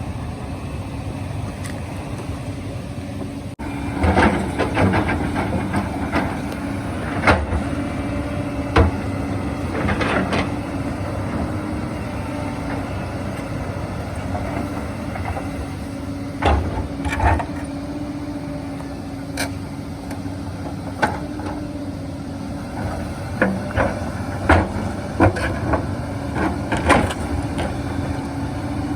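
Hyundai 220 excavator's diesel engine running steadily, with repeated knocks and clunks as the bucket drags and turns over stones.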